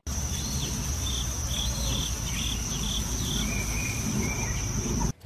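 Outdoor field ambience: a steady high-pitched trill of insects such as crickets, with a run of short chirps over the first few seconds and a low rumble underneath. It cuts off suddenly near the end.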